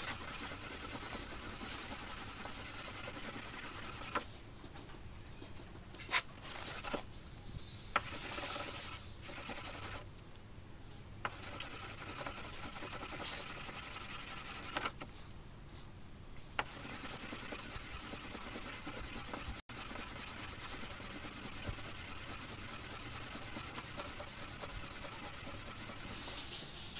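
Hand wet-sanding with 2000-grit sandpaper wrapped around a small mahjong-tile block, rubbing back red putty laid over clear-coat runs on a car fender: a steady scratchy rubbing that stops briefly three or four times.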